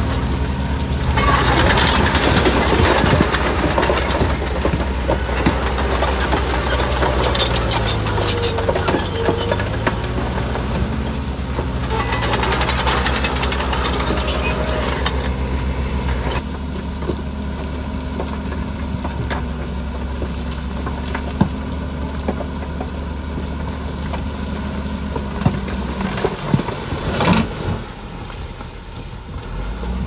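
Heavy diesel engine of earthmoving machinery running steadily, with two spells of loud rushing noise of a few seconds each, one near the start and one about halfway through. The engine note fades out near the end.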